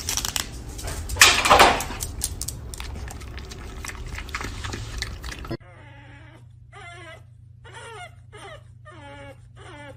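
Crinkling and crackling of plastic packaging as a small food cup is peeled open, with a louder rustle about a second in. It then cuts to a pug giving a series of short whining cries.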